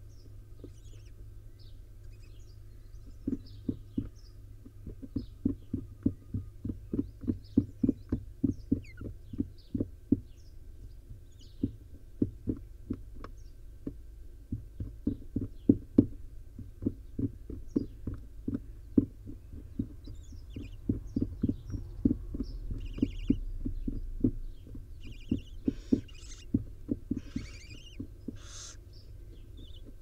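Rapid, irregular soft thumps and taps, several a second, from the adult barn owl shuffling and nibbling over its nestlings on the nest box floor, starting about three seconds in. Near the end come short bursts of hissing, the begging calls of barn owl nestlings.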